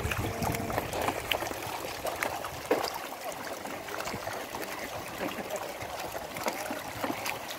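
Shallow shrimp-pond water splashing and trickling as waders drag a harvest net through it, with many small quick splashes scattered throughout.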